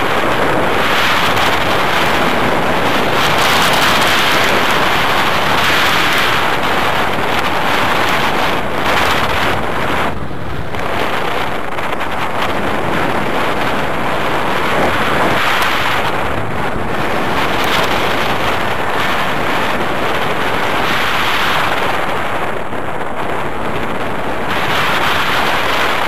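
Rushing wind noise on the microphone from the airflow of a paraglider in flight, loud and steady, swelling and easing, with a brief dip about ten seconds in.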